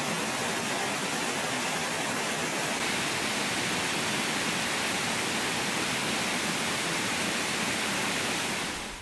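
Steady, even outdoor rushing noise with no distinct events, fading out near the end.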